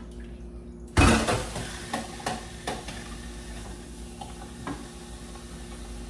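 A metal pot clinking in a stainless-steel sink, a few sharp knocks, over a steady hiss that starts suddenly with a loud burst about a second in.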